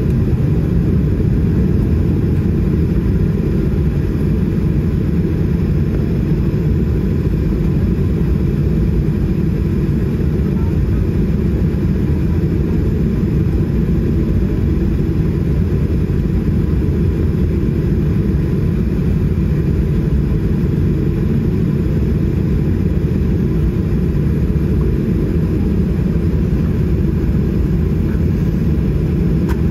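Steady low rumble of a Boeing 737-800 heard from inside the passenger cabin as it taxis after landing, its CFM56 engines at idle.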